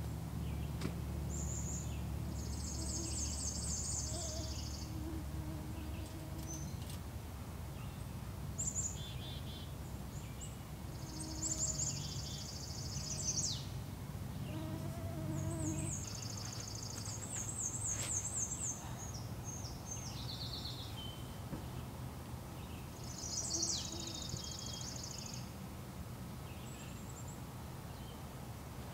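Flies and other insects buzzing close by in a steady low drone. Over it a songbird sings short, high, trilled phrases, repeated every several seconds.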